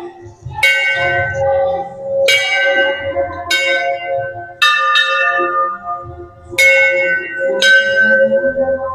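Hanging brass Hindu temple bells rung by hand one after another: about seven strikes, each ringing on and fading into the next, from bells of slightly different pitch.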